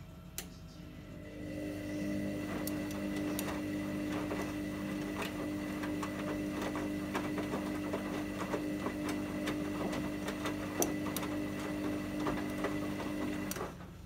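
Hoover washing machine's drum motor starting up about a second in and turning the drum during the main wash of a shirts program, a steady motor whine with scattered clicks as the wet shirts tumble. The motor cuts off just before the end, as the drum pauses between turns.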